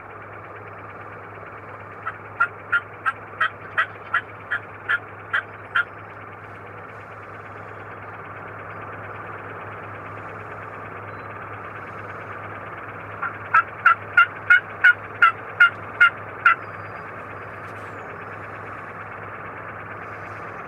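Two runs of turkey yelps, each about ten sharp, evenly spaced notes at roughly three a second. The first run starts about two seconds in and the second about thirteen seconds in.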